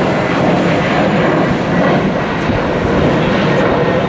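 Boeing 737-700's twin CFM56-7B turbofans running at climb thrust as it passes overhead, a loud, steady jet roar with no breaks.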